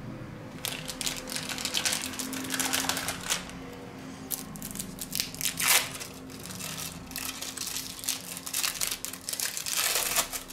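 Plastic packaging crinkling and rustling in irregular bursts as cheese slices are pulled from their plastic wrap, with a louder crackle just before six seconds in and another near the end.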